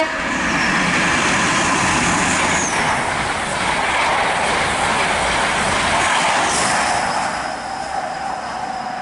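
East Midlands Trains HST (InterCity 125) passing through the station at speed without stopping: the diesel power car and coaches' wheels on the rails make a loud rush that builds at the start, holds for about seven seconds, then eases off as the train goes by.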